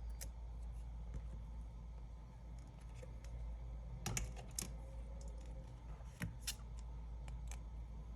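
Scattered light clicks and taps of small repair tools handling iPad parts, a handful of sharp ticks a few seconds apart, over a steady low hum.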